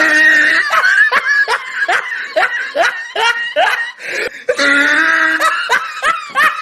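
A person laughing in a string of short bursts, about two a second, with a longer drawn-out laugh a little past halfway.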